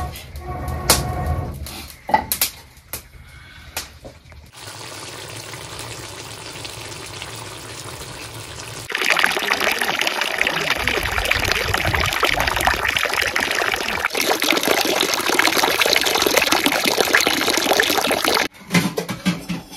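Water running or pouring in a steady stream, after a few knocks at the start; it gets much louder about halfway through and stops abruptly near the end.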